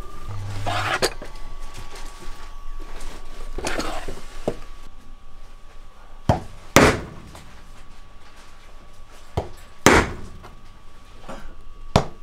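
Mallet striking a steel hand punch through belt leather on a cutting mat: sharp knocks in pairs, a light tap then a hard strike, three times about three seconds apart, starting about six seconds in. Before that, leather belt strips being handled and rustling.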